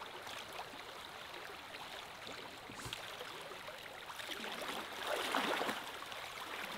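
River water flowing steadily, with a louder swell of water noise about five seconds in.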